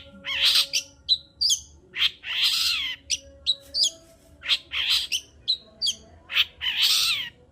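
Long-tailed shrike (cendet) in full song: quick sharp chirps and whistled notes broken by about four longer harsh, scratchy calls, the longest about a second.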